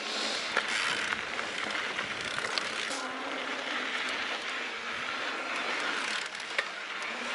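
Mountain bike rolling along a dirt singletrack: a steady rushing noise of the tyres on the trail, with a few light clicks from the bike scattered through it.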